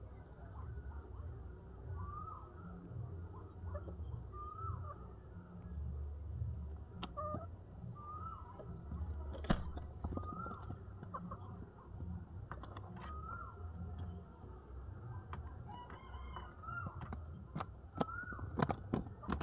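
Domestic pigeons cooing low, with a chicken clucking about once a second throughout. A few sharp knocks come about halfway through and again near the end.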